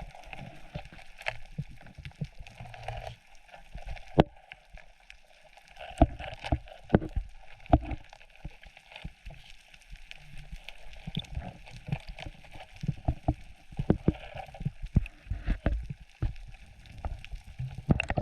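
Water moving around an underwater camera, with irregular knocks and clicks scattered throughout.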